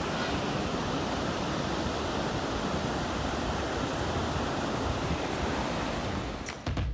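Steady outdoor rushing noise of surf and wind, with a low fluctuating rumble. Near the end, music with drum hits starts.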